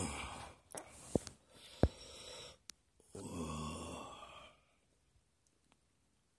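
A man's breathy sighs, the longest about three seconds in, with a few sharp clicks and taps between them.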